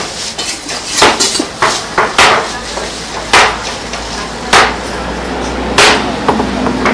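Heavy chopping knife chopping a mackerel tuna loin into chunks, the blade striking through the fish into the cutting board. Sharp, irregular chops: a quick cluster in the first couple of seconds, then about one a second.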